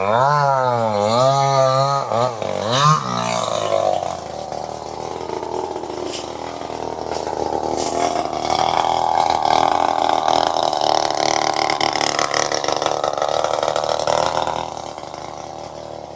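Two-stroke chainsaw engine revving, its pitch swinging up and down for the first couple of seconds, then climbing at about three seconds into a steady high-revving run, which eases off near the end.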